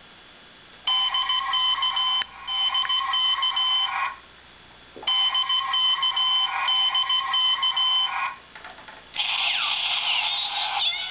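Akiba Ranger MMZ-01 Moe Moe Gun toy gun playing its electronic sound effects through its small speaker: two runs of rapid, stuttering high beeps, each about three seconds long, then a louder electronic jingle that starts near the end.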